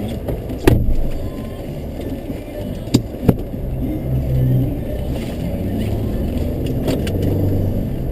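Car driving: a steady low rumble of engine and road noise, with sharp knocks about a second in and twice around three seconds in.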